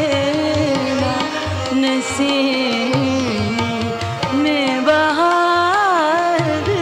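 South Asian ghazal accompaniment: tabla keeping a steady rhythm under sustained melodic instruments. A higher, wavering melody line joins about five seconds in.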